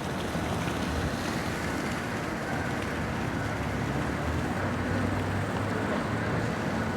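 Steady low engine hum under a constant hiss of outdoor noise, with some wind on the microphone.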